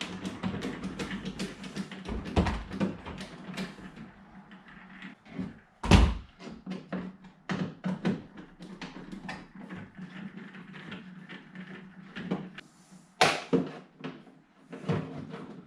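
Clicks, taps and knocks of hands working on a car door's trim panel and its fastening clips, with a heavy thump about six seconds in and another a couple of seconds before the end. A steady low hum runs underneath.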